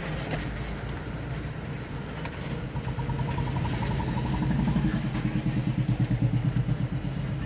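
A motor vehicle engine running: a steady low hum that grows louder in the second half, with a quick, even pulse.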